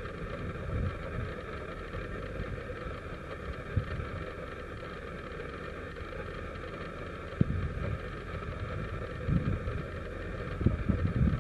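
Tractor-drawn bale stacker's engine running steadily, with wind buffeting the microphone in uneven gusts. A sharp knock about two-thirds through, and a smaller one a third in.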